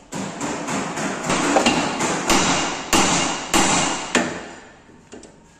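Hammer blows on the steel wheel hub and brake assembly of a Maruti Suzuki Alto 800: about a dozen metallic strikes, roughly three a second, with a ringing tone, stopping about four seconds in.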